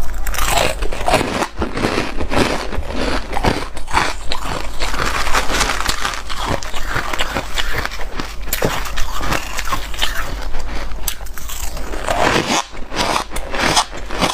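Close-up crunching and crackling of compacted shaved ice being bitten and chewed, with fingers raking through the loose ice in the bowl. There is a short break about twelve seconds in.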